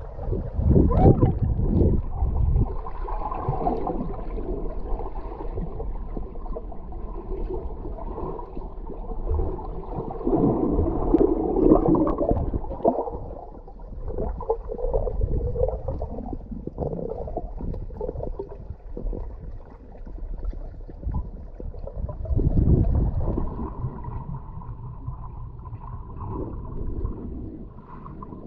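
Muffled water noise heard underwater: low rumbling and gurgling that swells and fades irregularly, louder around the middle and again near the end.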